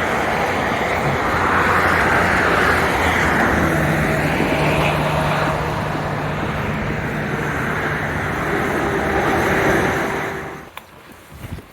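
Steady road traffic noise of passing motor vehicles, cutting off abruptly near the end.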